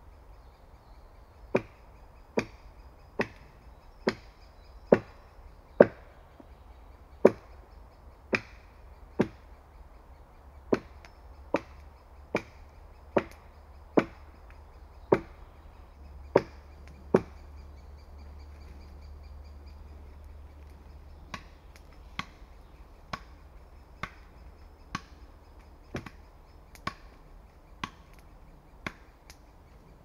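Axe chopping into wood with steady strokes just under a second apart: about seventeen hard blows, a pause of a few seconds, then about nine lighter ones.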